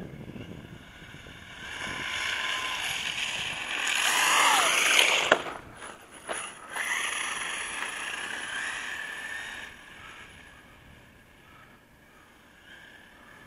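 Brushless electric motor of a Traxxas E-Revo RC truck whining at speed, the pitch sliding down about four to five seconds in as it comes close. A sharp knock follows, then a second one a second later, after which the whine rises again and fades out near the end.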